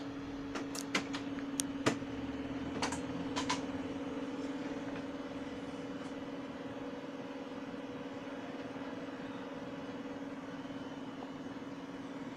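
HP Color LaserJet printer running a print job, a steady motor hum. Several sharp clicks come in the first few seconds.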